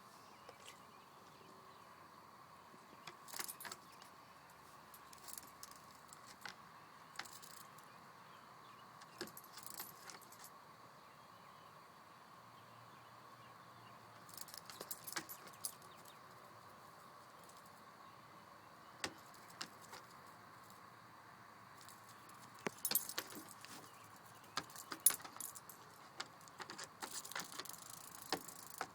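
Short, sharp rattling bursts on and off as a pet scuffles with a cicada, coming thickest near the end.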